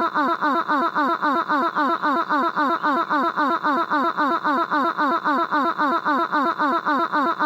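A short cartoon voice clip looped over and over: a rapid, machine-even string of short falling-pitch voiced syllables, about five or six a second, laugh-like in character.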